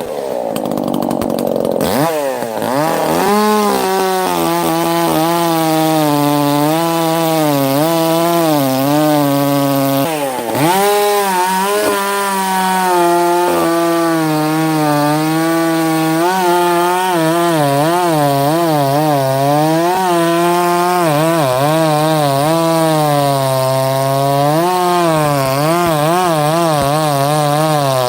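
Two-stroke chainsaw running and cutting wood, its engine pitch swinging up and down over and over, with a brief drop about ten seconds in. This is the saw the owner has just called trash for running badly again even after a new spark plug.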